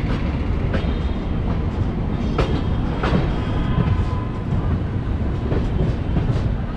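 Passenger train running on the rails, heard from an open coach door: a steady rumble of wheels on track, broken by sharp clacks at uneven intervals as the wheels run over the rails.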